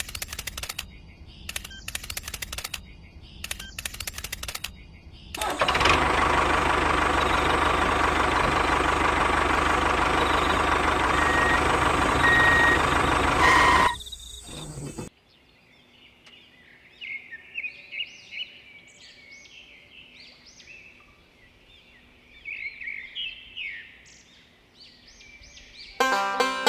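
A few seconds of scattered clicks and knocks, then a loud, steady mechanical running noise for about eight seconds that stops abruptly. After it come birds chirping faintly, many short calls.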